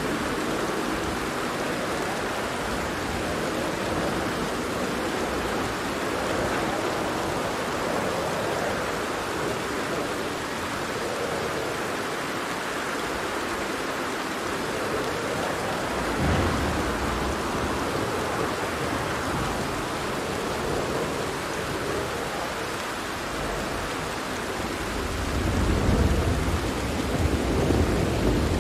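Steady rain with thunder. A low rumble of thunder sets in suddenly about halfway through, and another swells up near the end.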